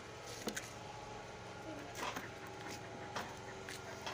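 Quiet background hum with a few faint, brief clicks and scuffs scattered through it.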